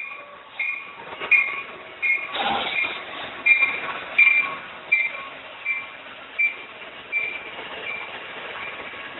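Electronic railroad crossing bell (General Signal Type 1) ringing steadily about once every three-quarters of a second over the running noise of a passing train. There is a brief loud burst of noise about two and a half seconds in, and the bell grows fainter near the end.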